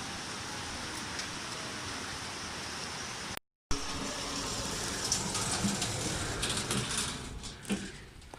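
Steady rush of flowing water from a waterfall stream. It drops out briefly about three and a half seconds in, then comes back with a few faint knocks and fades slightly near the end.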